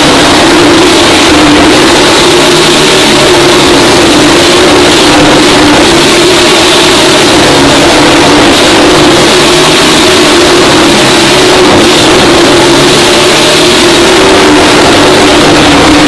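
Motorcycle engine running loud and steady at high revs as it circles the vertical wooden wall of a Wall of Death drum, its pitch wavering only slightly.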